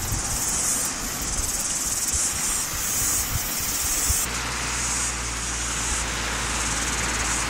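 Cicadas buzzing in a loud, high-pitched chorus that swells and drops back in pulses. A low, steady rumble comes in suddenly about four seconds in.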